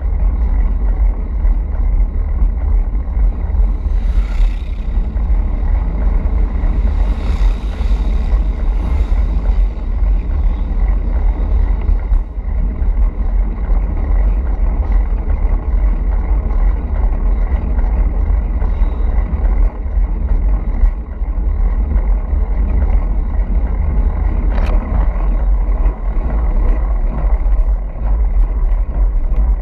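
Steady wind buffeting on a handlebar-mounted camera's microphone as a road bike rolls at speed, a deep rumble with short hissy swells about four seconds in and again a few seconds later.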